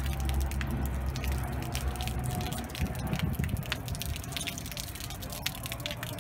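Water from a hose spraying and spattering against a corrugated metal fence, a dense run of small splashes and drips. A low steady rumble sits under it for the first three seconds or so.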